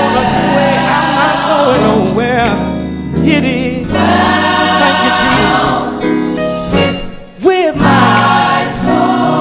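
Gospel music: a choir singing over sustained accompaniment, the voices sliding through melismatic runs, with a brief drop in level about seven seconds in.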